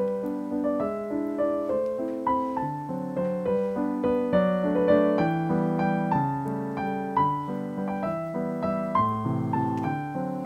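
Background piano music: a continuous run of notes with a steady melody and chords.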